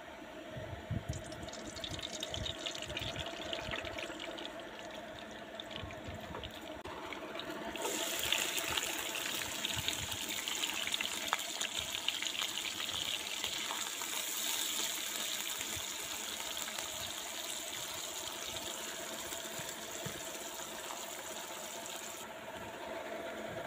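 Sliced onions sizzling in hot oil in a non-stick wok, the sizzle jumping up loud and bright about a third of the way in as they hit the oil. Before that there is a fainter hiss with a few low knocks, and the sizzle eases a little near the end.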